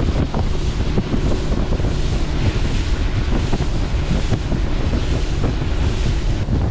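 Heavy wind buffeting the microphone of an outboard motorboat running fast on plane, with the motor and rushing water underneath as a steady loud rush.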